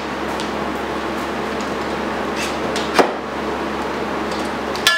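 Clamps being handled and set on a plywood work table: a sharp knock about three seconds in, and another near the end followed by a brief ringing, over a steady background hiss.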